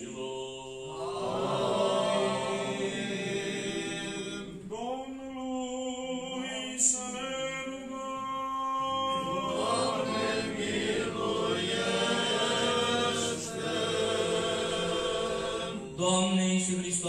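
Orthodox church chant sung without instruments: a liturgical response in long held notes, in several phrases. A short sharp knock sounds about seven seconds in.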